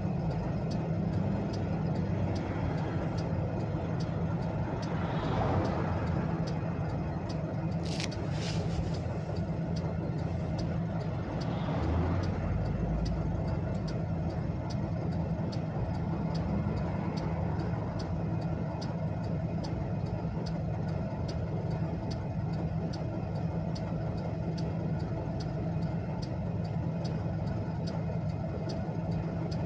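Car hazard warning flasher ticking steadily in an even rhythm, heard from inside the cabin over the steady hum of the engine idling. A short hiss sounds about eight seconds in.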